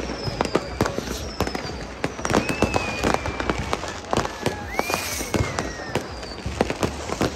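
New Year's fireworks and firecrackers going off all around: a dense, irregular series of sharp bangs and cracks. Whistling rockets glide in pitch over them, one about two and a half seconds in and another rising and falling about five seconds in.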